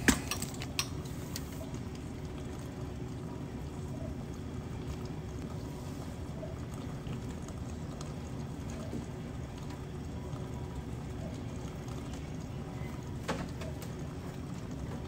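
Milk poured from a plastic gallon jug into a plastic ice cream pint container, a steady trickle over a faint steady hum. A brief knock near the end.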